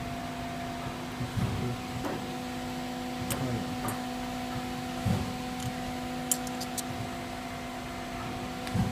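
Steady machine hum with a low tone, broken by a few sharp clicks and knocks of metal parts being handled, with a quick run of clicks a little past the middle.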